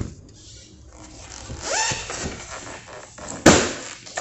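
Vinyl floor planks being handled and laid, with scraping and rubbing sounds and one sharp knock about three and a half seconds in.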